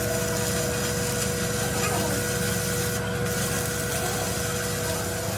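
Workshop power tool running steadily, a constant hum with a steady whine and a rough scraping noise over it.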